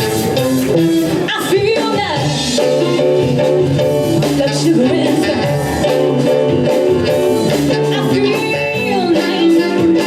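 Live band playing a Motown-style soul number, with singing.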